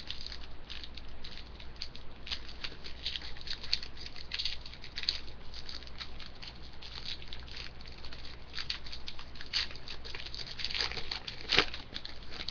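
Trading cards and a foil pack wrapper being handled: a steady run of small crinkles and clicks, with one sharper click near the end.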